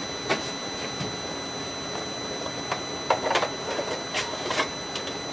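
A clear plastic cube being fitted by hand into a white cardboard box: a scattering of light knocks and scrapes, busiest about three seconds in, over a steady background hiss.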